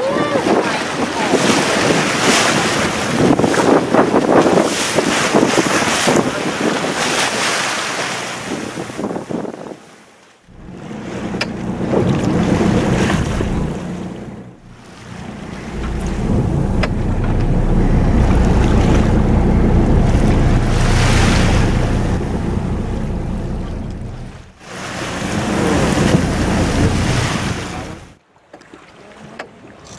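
Wind noise on the microphone on a boat at sea, over the wash of waves, with a heavy low rumble through the middle stretch. The sound cuts out abruptly four times.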